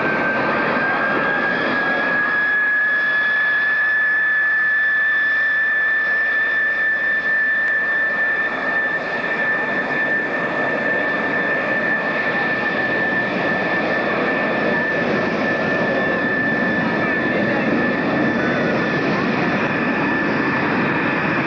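De Havilland Vampire's turbojet engine running with a steady high whine over a broad rushing noise. The whine rises a little in pitch in the first couple of seconds, then holds steady.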